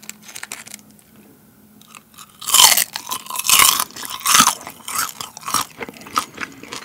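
Crisp fried pork intestine (dorae-chang) being bitten and chewed, with loud crunching that starts about two and a half seconds in. The crunch is the fried shell crumbling, a sign that it is fried very crisp.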